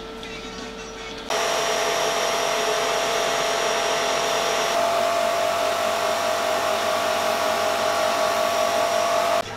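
A sandblasting cabinet's air-blast gun hisses loudly and steadily, with a steady whine running through it, as cam covers are blasted inside. It starts suddenly about a second in and cuts off just before the end, after a quieter first second.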